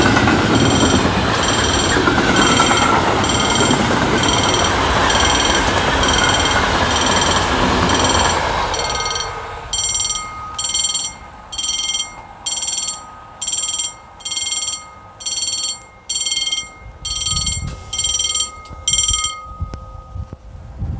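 Freight wagons rumbling past on the rails while the level crossing's old mechanical bells ring in repeated bursts. About nine seconds in the train noise ends and the bells carry on alone, a little over one burst a second, until they stop shortly before the end.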